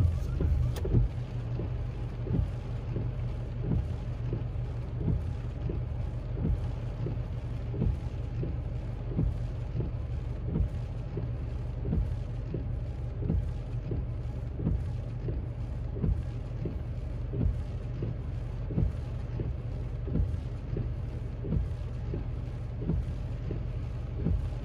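A car engine idling, heard from inside the cabin: a steady low rumble with a faint regular pulse about twice a second.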